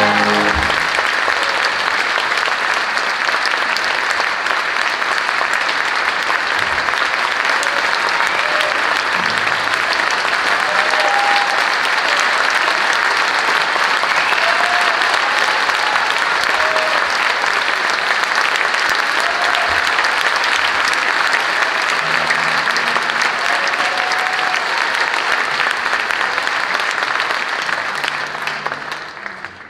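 Opera house audience applauding steadily after the orchestra's final chord dies away in the first second. A few short calls rise above the clapping now and then, and the applause fades out near the end.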